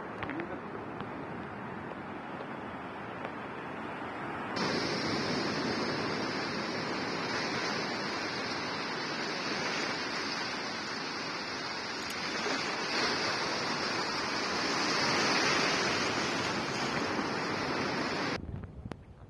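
Sea surf washing onto a sandy beach: a steady rush that gets louder about four seconds in and falls away shortly before the end.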